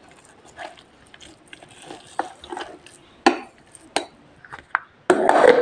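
A plastic spatula scraping and stirring wet ground-peanut paste inside a steel mixer-grinder jar: soft, uneven scrapes and taps. A louder half-second burst of noise comes near the end.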